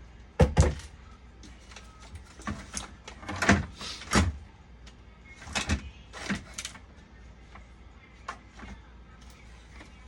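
Irregular knocks, clicks and scraping clatter of tools and small parts being handled on a workbench, loudest about half a second in and in a cluster in the middle, over a low steady hum.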